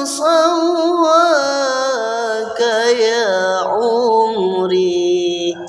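Solo unaccompanied voice singing an Arabic sholawat, drawing out long ornamented melismatic notes that step down in pitch and end near the close. It is a dry phone recording with no added effects.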